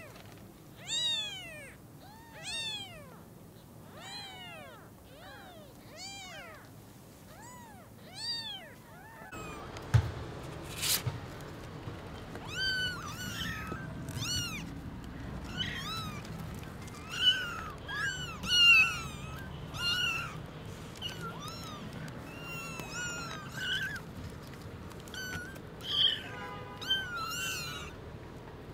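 Young kittens mewing over and over: short, high-pitched calls that rise and fall, one after another, with several overlapping and coming faster later on. A single sharp thump about ten seconds in.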